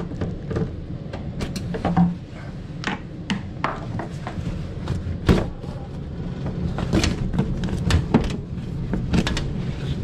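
Sheet-metal access panel of an air handler being worked loose and lifted off: scattered clicks, knocks and metallic rattles, over a steady low hum.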